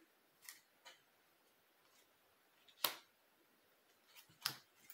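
Tarot cards being drawn from the deck and laid down: a few short, crisp card clicks and snaps. The sharpest comes about three seconds in and two more come near the end.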